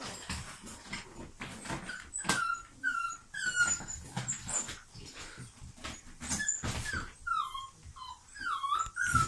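Staffeteer puppies whimpering and squealing: short, high, wavering cries, coming thicker near the end, among scuffling and knocks.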